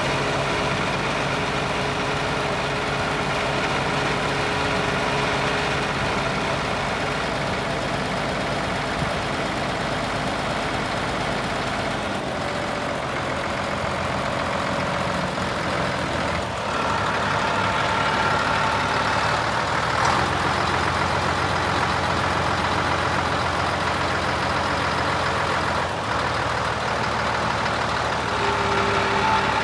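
Scania 93M truck's diesel engine running steadily at idle while the hydraulic hoist lowers the tipped body. The note changes about twelve seconds in and again a few seconds later.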